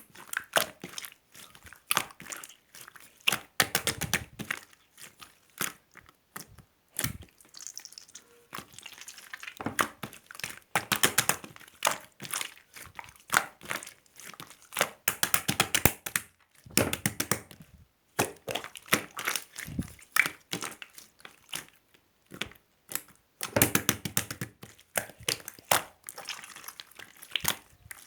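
Silver slime being squeezed, pressed and stretched by hand, making quick runs of small wet clicks and pops in bouts, with short quieter pauses between them.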